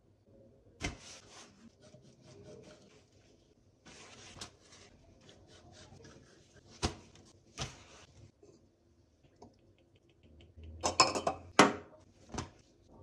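Large kitchen knife cutting through stacked yufka dough sheets on a stone countertop: papery rustling scrapes of the blade with a few sharp knocks as it meets the counter. Near the end a small bowl is handled against the counter, the loudest clatters.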